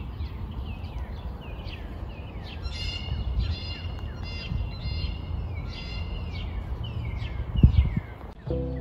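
Birds chirping and calling: many short falling chirps, with a few harsher, buzzier calls in the middle, over a steady low rumble. A brief low thump near the end is the loudest moment.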